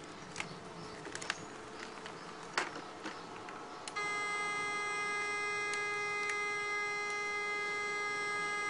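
A few faint clicks and ticks, then about four seconds in an electronic pipe locator switches on a steady, unwavering buzzing tone, the signal it sounds while tracing metal pipe.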